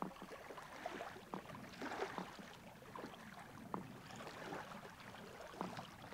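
Quiet water sounds around a canoe: lapping and small irregular splashes and drips, swelling twice, about two seconds and four and a half seconds in.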